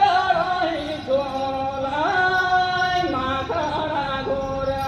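Voices singing a Santhal folk song for the dance, in long held notes that slide up and down between phrases.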